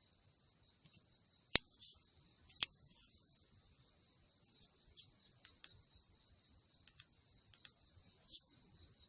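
Steady high-pitched insect chorus, with two sharp loud clicks about a second and a half and two and a half seconds in, followed by several fainter ticks.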